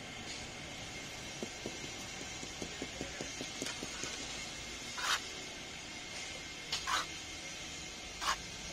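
Steel trowel working wet concrete in a roof-tile mould. A run of faint gritty ticks comes first, then three short scrapes about a second and a half apart.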